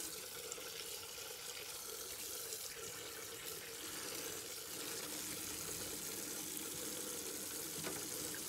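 A kitchen tap running steadily into a stainless steel sink, the stream splashing over fish being rinsed under it.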